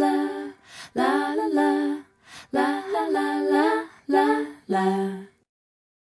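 Background music: a slow, gentle song carried by a singing voice in phrases about a second long with short breaks between them. It ends about five and a half seconds in.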